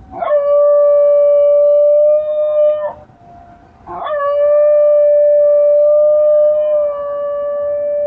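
Basenji howling in two long held notes, each sliding quickly up into a steady pitch: the first breaks off near three seconds, the second starts about four seconds in and is held to the end.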